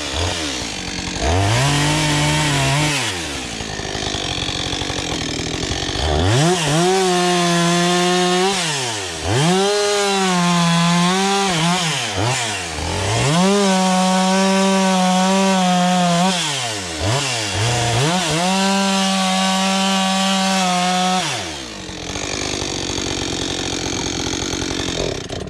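Husqvarna 562 XP two-stroke chainsaw bucking firewood: the engine climbs to a high, held full-throttle note and falls back about five times as it works through cuts. Near the end it runs without a clear note, then stops abruptly.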